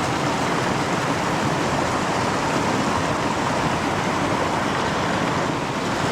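Creek water running steadily, an even rushing noise with no breaks.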